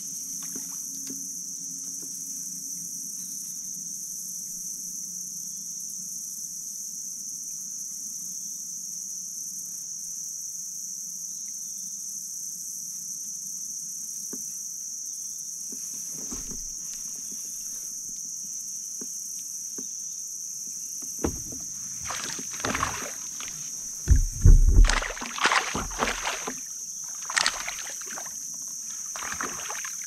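A steady high-pitched insect chorus, with a cluster of loud knocks and splashes on the kayak from about two-thirds of the way through.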